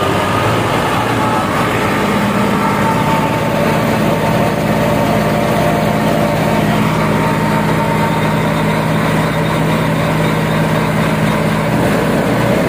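New Holland 480 diesel tractor engine running steadily under load, driving a wheat thresher through its PTO shaft, with the thresher's drum and belts whirring along.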